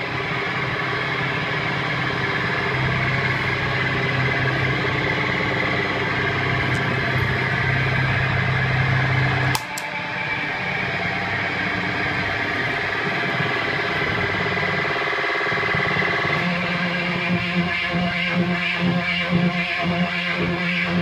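Electric guitar, a Gibson Les Paul in drop C, through a fuzz pedal: a sustained, buzzing fuzz drone that shifts as the pedal's knobs are turned. About ten seconds in a footswitch clicks and the tone changes, and near the end it pulses unevenly.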